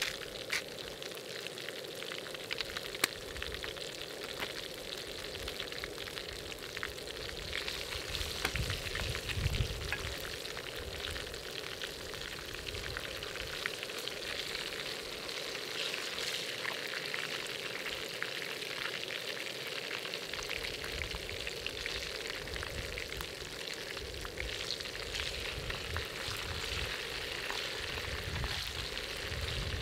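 Olive oil sizzling in a pan of ajillo, a steady hiss with many small pops and crackles.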